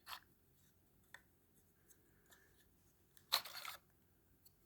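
A few faint clicks, then a short scraping rattle about three seconds in, as small engine parts are handled while the piston is being taken out.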